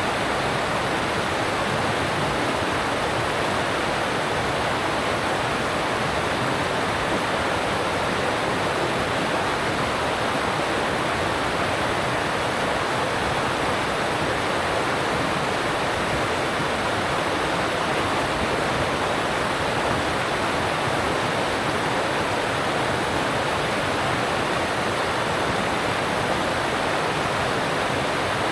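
An alpine mountain stream rushing over rocks, a steady, even rush of water that does not change.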